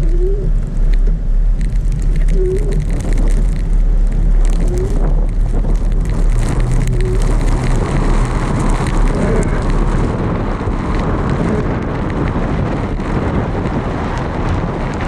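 Car driving through snow: a steady low rumble of engine and road noise under an even hiss, with a short wavering squeak about every two and a half seconds. The rumble eases about ten seconds in.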